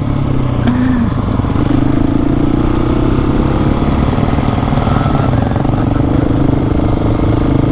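Husqvarna 701's single-cylinder engine running at a steady, even pace while riding, with road and wind noise.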